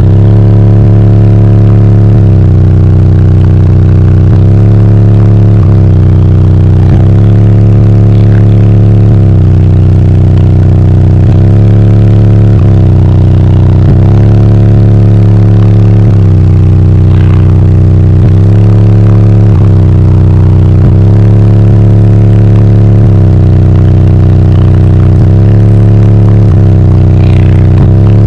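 Bass-heavy music played at extreme level through a car's four 15-inch Ascendant Audio Mayhem subwoofers, driven by two CT Sounds 7000-watt amplifiers. The deep bass notes change every second or two and are so loud that the recording is pinned at full scale and distorted.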